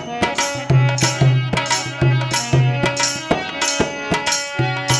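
Instrumental break in a Rajasthani Holi folk song: a brisk drum rhythm with held melody notes and short low pulses under it.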